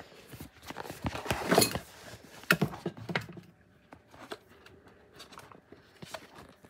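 Handling noise from a phone being moved and set down: a run of knocks, rustles and clatter in the first three seconds, then only a few faint clicks.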